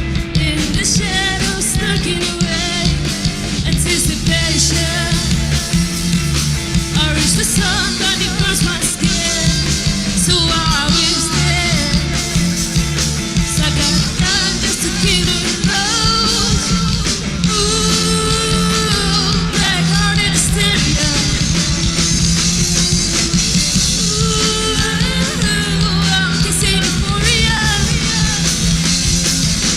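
A rock band playing a song with a lead vocalist singing over the full band.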